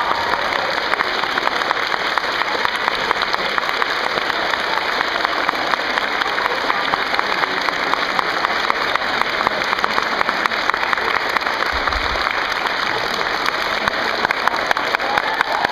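Large audience of schoolchildren and adults applauding, with dense, steady clapping that carries on throughout.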